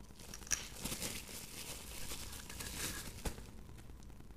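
Plastic bubble wrap crinkling and rustling as a small package is handled and unwrapped by hand, with a couple of light clicks.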